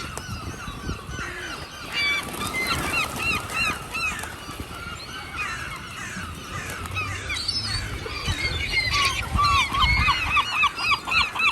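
A crowd of birds gathered for food calling over one another in many short, arched honking calls, turning into a fast, regular run of repeated calls near the end.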